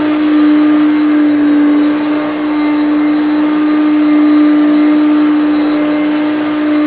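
Hoover Concept One upright vacuum cleaner running steadily, its motor giving a strong, even hum-whine over a rush of airflow noise.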